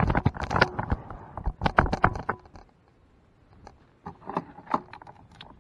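A quick run of knocks and rattles for about two and a half seconds, then a few lighter taps near the end.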